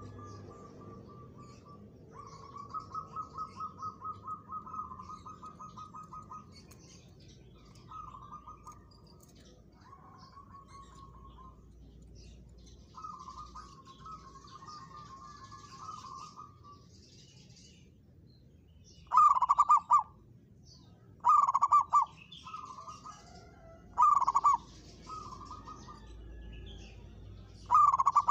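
Zebra dove (perkutut) cooing: soft, rapidly pulsed trilling coo phrases through the first half, then several loud, short coo phrases from about two-thirds of the way in. Small birds chirp faintly in the background.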